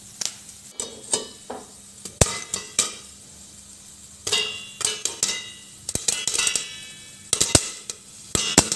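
Popcorn kernels starting to pop in a hot pan: irregular sharp pops, a few at a time, some knocking against the steel lid so that it briefly rings. A steel lid clatters onto the pan about four seconds in.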